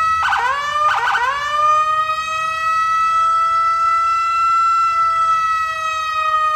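Police car siren: two quick rising swoops in the first second, then one steady high tone held for several seconds.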